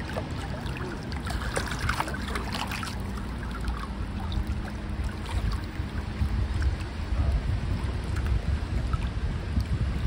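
Wind buffeting the microphone in gusts, a low rumble over the noise of choppy lake water, with some scattered crackles and splashes in the first few seconds.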